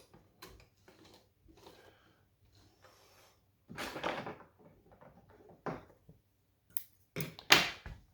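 Handling noises at a sewing machine: scattered clicks and knocks with a short rustle about four seconds in, and the loudest pair of knocks near the end. No stitching run is heard.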